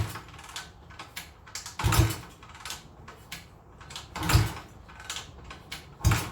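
Honda XL250S single-cylinder engine being kickstarted, a heavy thump of the kick lever about every two seconds, the engine turning over without firing: a no-start.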